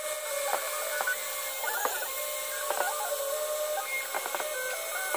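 Stepper motors of a CNC-converted mill whining in stepped tones that jump up and down in pitch every fraction of a second as the axes change speed, while the end mill cuts a 3D shape into wood.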